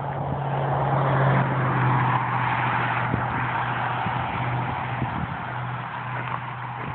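A motor vehicle engine running with a steady low hum. Its noise swells about a second in, then fades slowly, with a few light clicks over it.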